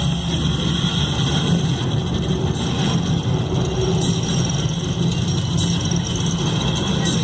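Sound-effects soundtrack of a projection-mapping show played over loudspeakers: a steady, loud, low rumbling drone without a clear beat.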